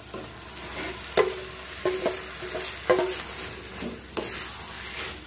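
Boiled whole green moong dal tipped into a hot wok of fried onion masala and stirred in with a spatula: a steady sizzle with scraping, a few clinks, and sharp knocks of utensils on the wok about one, three and four seconds in.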